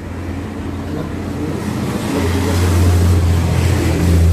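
A road vehicle going past: a low engine rumble with a hiss that grows louder from about two seconds in.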